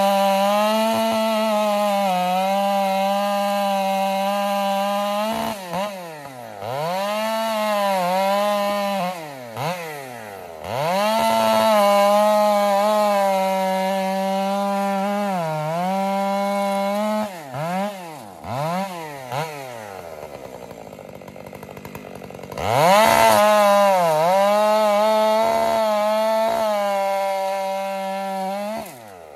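A large chainsaw running at full throttle, bucking a shagbark hickory trunk into rounds. Between cuts the engine eases off and blips, with a quieter few seconds a little after the middle before it opens up again for the next cut.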